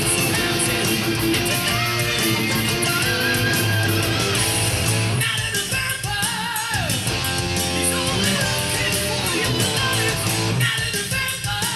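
Distorted electric guitar through a DiMarzio DP100 Super Distortion humbucker playing a heavy metal lead line, with wavering held notes and a note sliding down in pitch about six seconds in.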